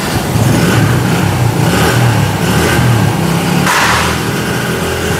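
A motorbike engine running and revving up and down, with a short hiss about three and a half seconds in.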